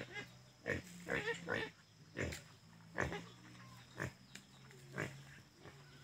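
Short, low animal grunts, repeated irregularly about once or twice a second, over a steady low hum.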